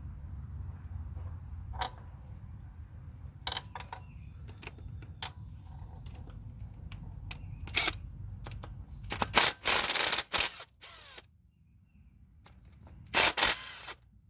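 Metal hand tools and bolts clicking and clinking while a bolt is taken out of a car engine, followed by two loud rattling bursts about a second long, the second one near the end.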